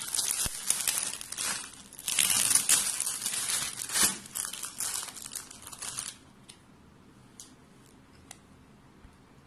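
A clear plastic packaging bag crinkling as it is handled and socks are pulled out of it, in irregular bursts for about six seconds, then stopping.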